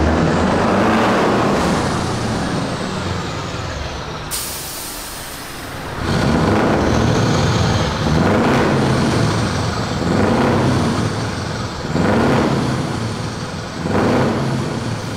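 Scania R580's 16-litre V8 diesel, exhaust valve open, pulling in and then revved hard about five times, roughly every two seconds, with the sound echoing in a concrete underpass. An air-brake hiss comes about four seconds in, as the truck stops.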